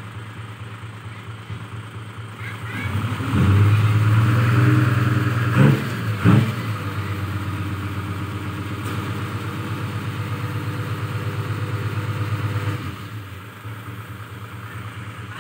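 Fuso dump truck's diesel engine idling, then revving up about three seconds in and holding at raised speed for about ten seconds while the hydraulic tipper lifts the loaded bed, then dropping back to idle. Two sharp knocks come close together near the middle and are the loudest sounds.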